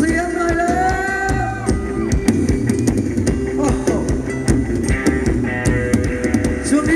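Live band playing Thai ramwong dance music, with a steady drum beat under a held melody line.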